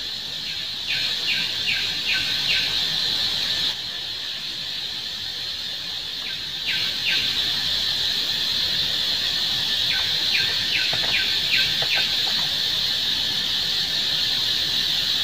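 Steady high drone of insects, with a few runs of short, quick falling chirps: four or five in a row about a second in, a pair around seven seconds, and a longer run around ten to twelve seconds.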